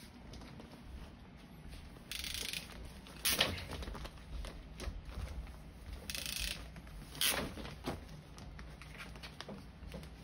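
Hand PEX crimp tool squeezing clamp rings onto a PEX fitting: two sharp clicks about four seconds apart, each coming about a second after a short rustle.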